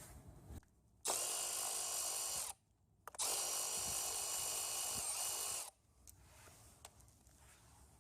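A hand-held power tool's motor runs twice at a steady speed: about a second and a half starting a second in, then about two and a half seconds after a brief pause.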